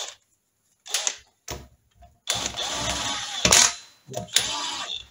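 DeWalt cordless drill-driver spinning big-end nuts down onto the conrod bolts of a Triumph Trident crankshaft, in trigger bursts: two short ones, then a longer run of about a second and a half with the motor speeding up and slowing down, and one more near the end.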